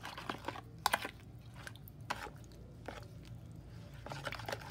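A fork stirring melon strips through evaporated milk in a plastic bowl: irregular wet squelches and light clicks, with a sharper click about a second in.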